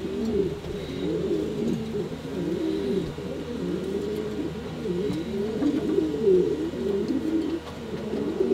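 Pouter pigeons cooing, many low coos overlapping one another with no pause.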